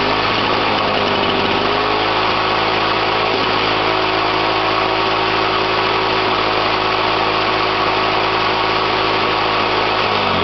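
Suzuki two-stroke engine of a 1980s Toro push mower running steadily just after starting, settling to an even speed in the first second. It begins to slow right at the end as it is shut off.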